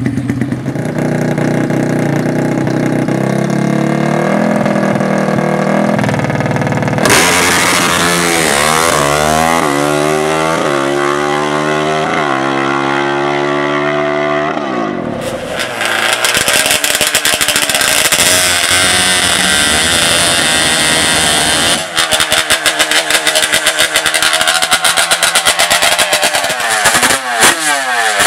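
High-revving racing engines. One accelerates hard, its pitch climbing and dropping back several times in a row as it shifts up through the gears, and later a rapid, uneven pulsing engine note.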